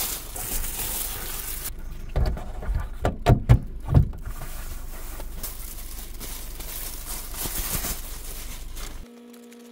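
Crinkling and rustling of mylar emergency blankets and foil-lined window covers being handled in a car, with a few thumps about two to four seconds in. Near the end it cuts to a quiet steady hum.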